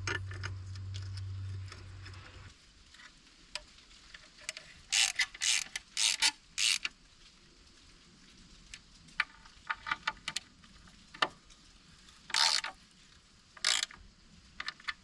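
Short bursts of ratchet-like clicking from hand tools worked on a compact track loader's undercarriage, several quick runs of ticks with pauses between. A low hum stops about two seconds in.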